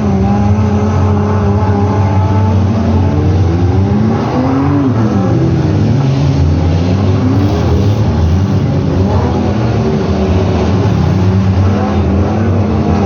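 Several full-sized demolition derby car engines running loudly. The pitch rises and falls a few times as the engines are revved.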